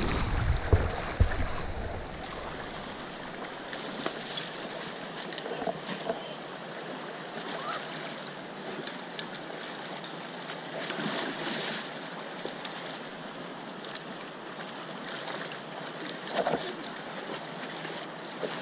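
Shallow river flowing over rocks: a steady wash of rippling water, with a few brief, slightly louder splashes.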